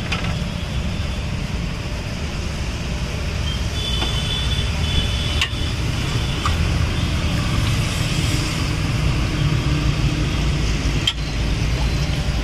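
Steady rumble of street traffic, with a couple of sharp clinks of a spoon against steel serving pots.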